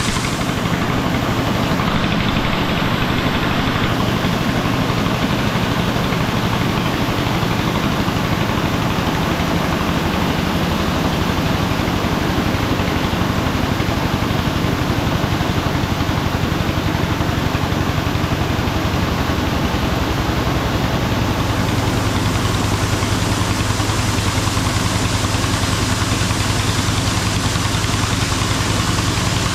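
The tipping trailer's small donkey engine running steadily to drive its hydraulic tipping ram, with grain pouring from the tailgate chute into the intake hopper. About twenty seconds in, the low engine note grows stronger.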